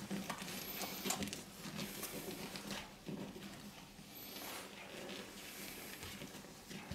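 Newborn puppies nursing from their mother: small wet suckling clicks and scuffling on the bedding, with a few thin, high squeaks.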